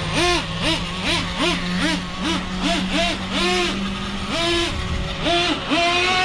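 Traxxas Revo 3.3 nitro RC truggy's small glow-fuel engine revved in quick throttle blips, about two a second, then in longer held revs near the end, over a steady idle, as the truck tries to free itself after getting stuck in the grass.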